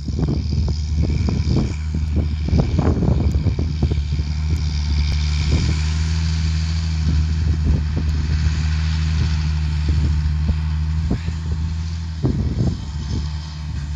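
A John Deere tractor's diesel engine droning steadily under load as it pulls a roller drill, with wind buffeting the microphone in irregular gusts.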